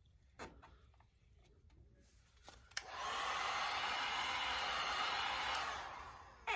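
Heat gun switched on about three seconds in, blowing a steady hiss of hot air over vinyl wrap film to soften it, then dying away near the end.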